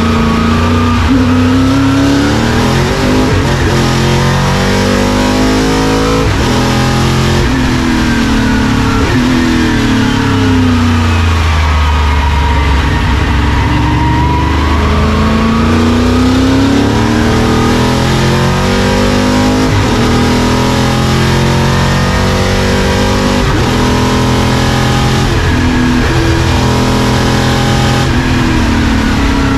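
Chevy V8 of a space-frame Mercedes 450 SLC sports sedan race car at racing speed, heard from inside the cockpit. The engine note climbs and falls again and again as it accelerates, shifts up and backs off for corners, with a long drop in pitch about halfway through and a run of quick upshifts near the end.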